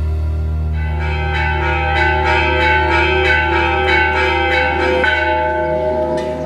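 Bells ringing in a quick peal, about four strikes a second, starting about a second in, over a steady low drone.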